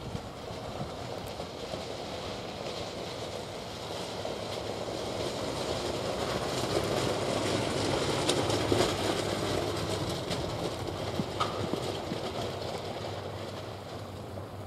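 Norfolk Southern freight train rolling past: wheel-on-rail noise with scattered clicks builds to a peak about eight seconds in, then eases off. A short wheel squeal comes a few seconds after the peak.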